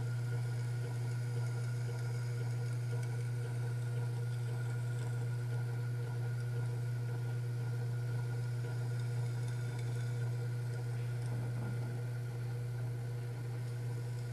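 A steady low hum that does not change in pitch or level, with nothing else standing out over it.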